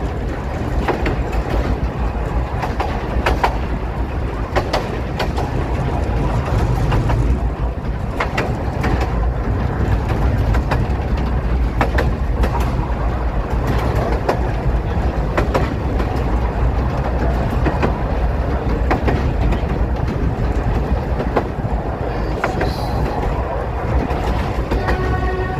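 A narrow-gauge railway train running, heard from an open-sided passenger wagon: a steady low rumble with irregular clicks of the wheels over the rail joints.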